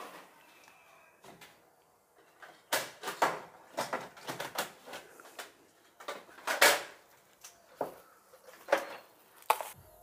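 Thin plastic bag crinkling and rustling in the hands, in irregular sharp crackles starting a few seconds in.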